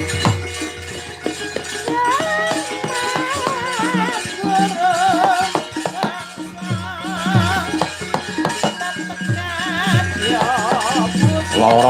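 Javanese gamelan music of a wayang kulit performance: a steady pattern of low drum strokes under a wavering melody line with strong vibrato.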